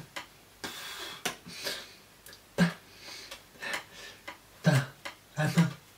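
A person's breathy mouth sounds and short wordless voice sounds while signing: puffs and hisses of breath, then three brief low grunts in the second half.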